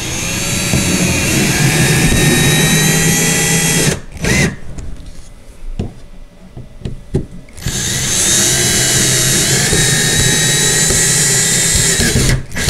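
Cordless drill driving screws into the threaded inserts of wooden bed rails: two runs of about four seconds each, the first climbing in pitch as it speeds up, with a pause and a few light knocks between them.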